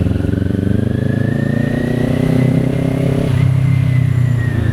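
Kawasaki Ninja 400's parallel-twin engine pulling under acceleration while riding, its pitch rising steadily for about three seconds, then levelling off and easing slightly.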